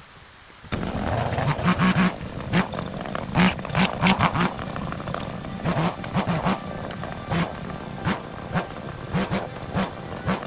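Chainsaw coming in suddenly about a second in and running with uneven revs, over many sharp cracks and snaps, as in cutting through bamboo.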